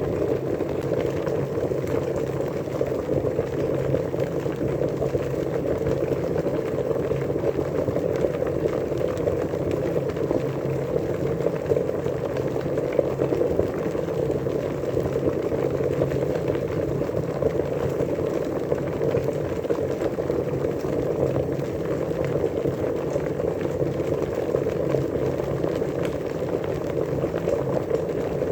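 Water at a rolling boil, a dense, steady bubbling with no change in intensity.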